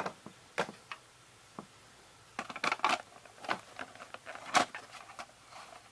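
Scattered small clicks, taps and scrapes of plastic parts being handled, as the reel is worked out of an opened VHS cassette. There is a quick run of clicks about two and a half seconds in and a sharper click about four and a half seconds in.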